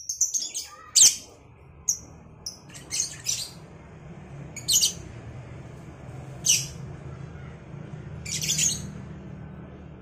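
Caged lovebirds calling back and forth with short, shrill, high-pitched chirps and squawks, coming in quick bursts every second or two, the loudest about a second in.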